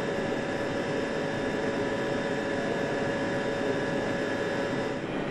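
BMW petrol engine running at a steady speed on a test bench, a constant hum with a few steady whining tones over it.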